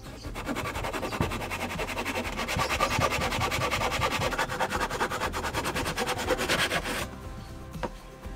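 Japanese-style hand saw cutting through a softwood board in fast, rhythmic strokes, rasping steadily until the cut finishes and the sawing stops about seven seconds in.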